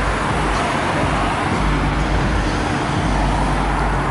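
Steady road traffic noise with a deep rumble of wind on the microphone that comes and goes.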